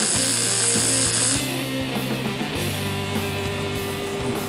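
Background music throughout, with the hiss and crackle of an arc welder laying a weld on the car's steel trunk structure for about the first second and a half, then cutting off.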